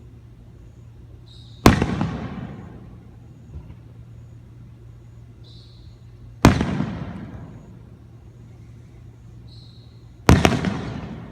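Three loud fireworks bangs about four seconds apart, each sharp crack followed by a fading echo.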